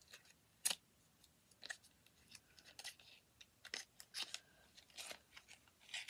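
Small cardboard product box being handled and opened by hand, its end flap worked open: a string of short, sharp clicks and brief scrapes of card, the sharpest about two-thirds of a second in.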